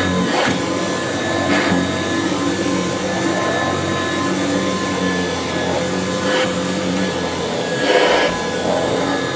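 Kirby Classic III vacuum cleaner running with its power nozzle on a rug: a steady motor whine and rush of air, with a few brief louder swells.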